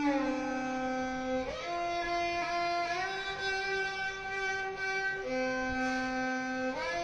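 Background music: a slow melody of long held notes that slide smoothly from one pitch to the next.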